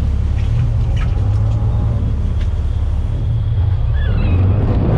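Sportfishing boat's engine running with a steady low rumble, with a few faint clicks over it.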